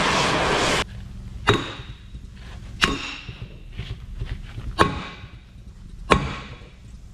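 Gas torch flame hissing, shut off under a second in; then four heavy sledgehammer blows on the steel of a Caterpillar D9R equalizer bar, each a sharp metallic strike with a brief ring, a second or two apart, hammering at the heated pin to drive it out.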